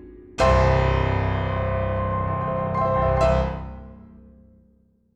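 Background piano music: a sustained chord struck about half a second in, a second accent about three seconds in, then fading out to silence near the end.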